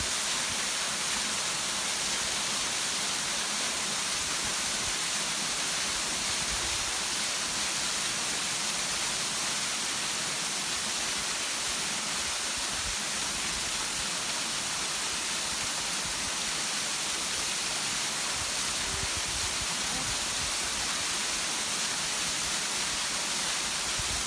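Waterfall: steady rushing of falling water, an even hiss that does not change in level.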